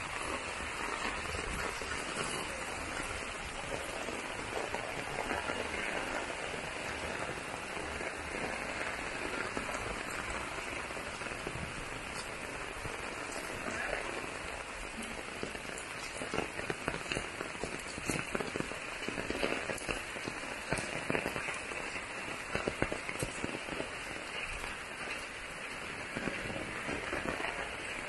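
Heavy rain falling with a steady hiss. From about halfway through, louder individual drops strike close by, uneven and spiky.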